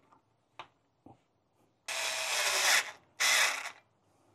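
Silicone intake coupler being pushed and twisted onto the throttle-body inlet, rubbing and scraping against it. There are a couple of light clicks, then two loud stretches of rubbing, about a second long and then about half a second long.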